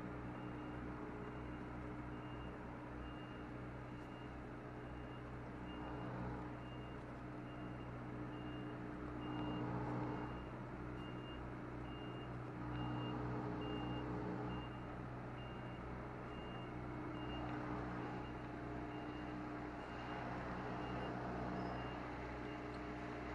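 Lorry's reversing alarm beeping steadily, about one and a half beeps a second, over the diesel engine running at low revs as the truck backs its trailer toward a loading bay.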